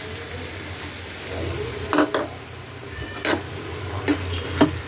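Brinjal, onion and tomato sizzling in oil in a non-stick kadai as spice powder is stirred in with a steel spoon, with a handful of sharp knocks of the spoon against the pan about two, three and four seconds in.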